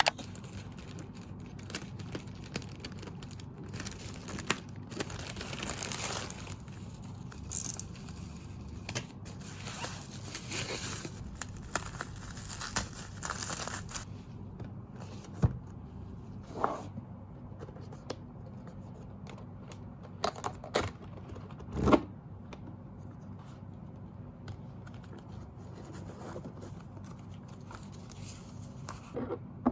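Packaging being torn open and crinkled by hand, rustling on and off, with a few sharp knocks in the second half.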